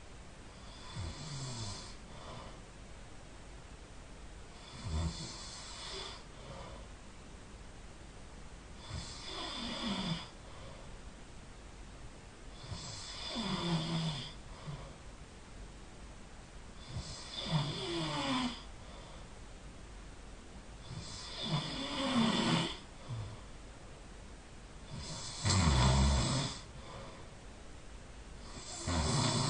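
A person snoring just after falling asleep, one snore roughly every four seconds, each dropping in pitch, the snores growing louder toward the end.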